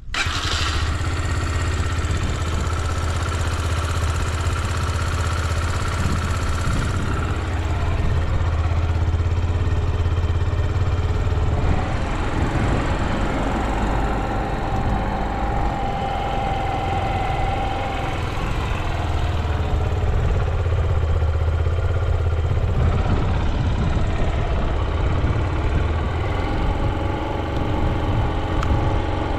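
Yamaha YBR125's air-cooled single-cylinder four-stroke engine running steadily, its tone shifting a few times, with no unusual noises from it.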